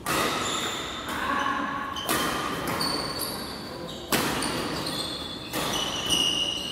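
Badminton rally play: rackets smacking shuttlecocks every second or so, with short high shoe squeaks on the court floor, all echoing in a large hall.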